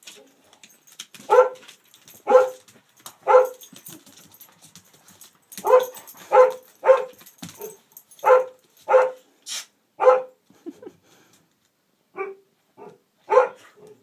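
A dog barking in play, about a dozen short, sharp barks in uneven bursts of two or three.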